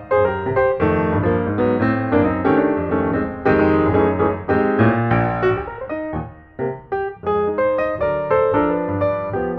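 Background piano music, a busy run of notes.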